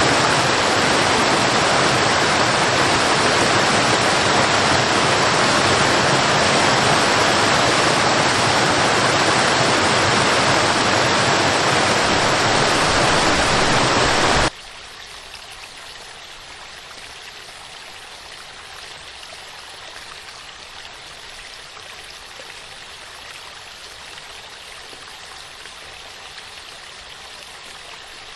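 Waterfall running as a loud, steady wash of falling water. About halfway through it cuts off abruptly to a much quieter, lighter sound of running water with little low rumble.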